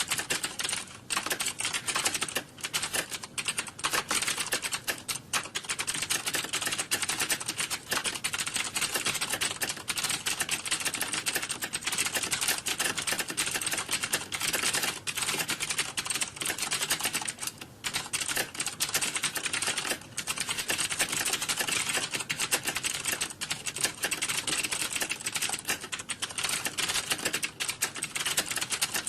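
Computer keyboard typed on fast and without letup, a dense run of key clicks with a few short pauses.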